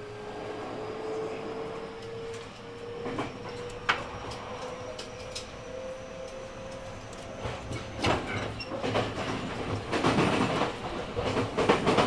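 JR West 223 series 2500-subseries electric train (Hitachi IGBT inverter) running: a steady motor whine rises slowly in pitch as it gathers speed. About eight seconds in, the wheels start clattering over rail joints with several sharp knocks.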